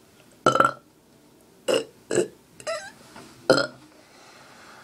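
A person burping out loud, about five short separate burps in a row.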